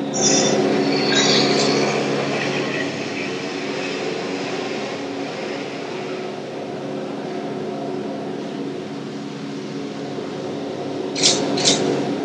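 Live electronic keyboard music: a low sustained drone chord held steady, with a few short hissing bursts near the start and twice near the end.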